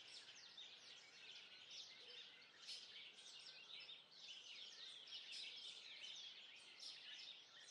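Faint chorus of many small birds, a dense stream of quick overlapping chirps that never lets up.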